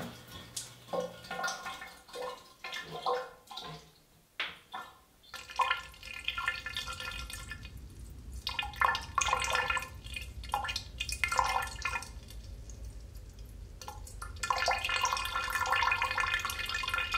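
Water dripping and splashing unevenly in a shower, with a pause in the middle. A low hum comes in underneath about seven seconds in.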